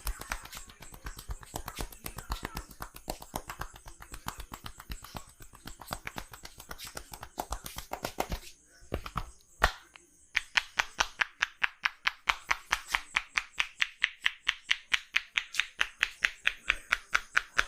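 Hands slapping and tapping on a person's body in a percussive massage: quick irregular patting at first, then after a brief pause and one sharp click, a steady fast rhythm of about five slaps a second.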